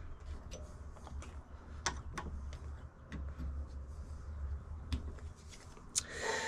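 Scattered light clicks and taps of metal parts as the wood lathe's tailstock is worked by hand, over a low steady hum, with a brief scraping rasp near the end.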